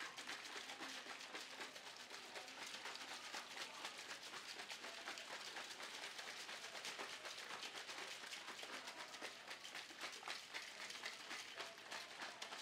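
Protein shake being shaken hard in a plastic shaker bottle: liquid sloshing and knocking inside in rapid, steady strokes.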